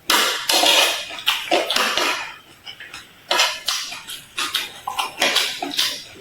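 Close-miked eating sounds: loud crunching bites and chewing of crisp food, in about eight uneven crackling bursts.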